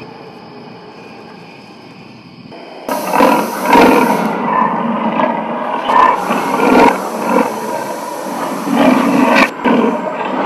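Dinosaur roars and growls, starting about three seconds in and going on in several loud swells; they come after a quieter steady background sound.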